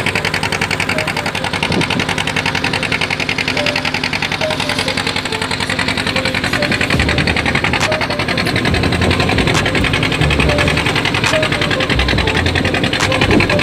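Fishing boat's engine running steadily with a rapid, even chugging beat.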